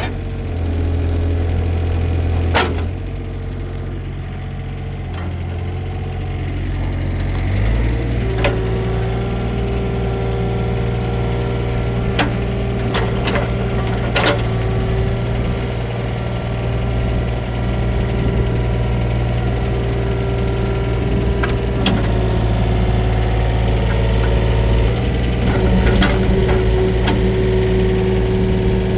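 Takeuchi TB135 mini excavator's diesel engine running, stepping up to a higher, steady speed about seven or eight seconds in as the machine is worked. Occasional sharp metallic knocks come from the moving bucket and linkage.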